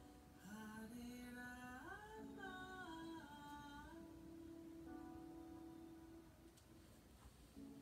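Faint wordless humming of a slow melody: long held notes that slide from one pitch to the next, with one long note in the middle that fades out about two-thirds of the way through.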